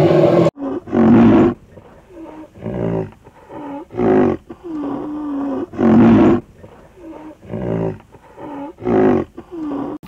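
Rhinoceros giving a run of short calls, roughly one a second, some bending up and down in pitch.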